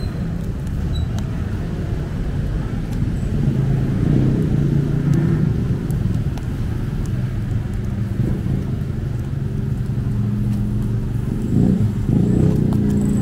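Busy night-street ambience: motor vehicles running past in steady traffic, with a continuous low rumble that swells a little a few seconds in and again near the end.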